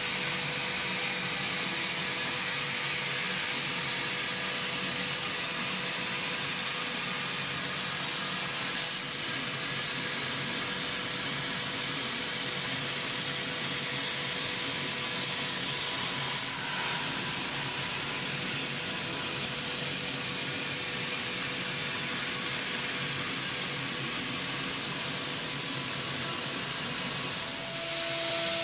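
CNC machining centre's spindle running a CBN ball end mill in a light finishing cut on hardened 60 HRC die steel, with oil-mist coolant spraying: a steady hiss over a steady machine tone. A few brief dips, and near the end the tone changes to a new pitch.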